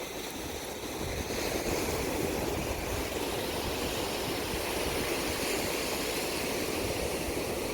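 Steady outdoor rushing noise, rising a little about a second in and then holding even.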